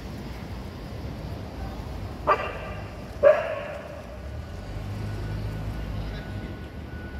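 A dog barks twice, about a second apart, the second bark louder, over a low steady rumble.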